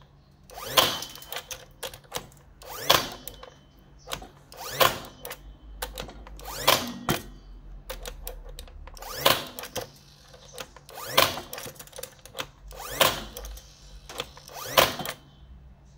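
Stanley SCN618 cordless 18-gauge brad nailer firing F50 brads into hard takhian wood, set to maximum depth. There are eight sharp shots, about one every two seconds, with lighter clicks between them.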